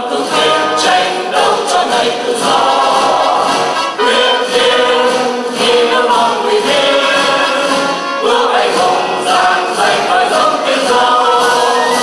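A choir of mostly women's voices singing a song together, amplified through handheld microphones.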